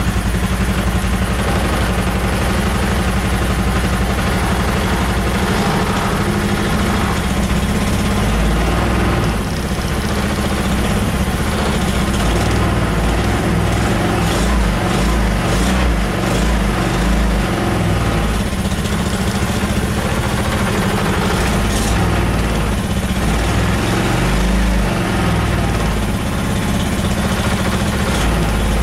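Go-kart engine running steadily just after a hard cold start in near-freezing weather, the engine still cold.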